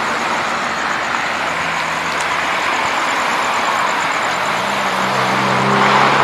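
Road traffic going by: a steady rush of passing vehicles, with a vehicle's low engine hum coming in and getting louder near the end.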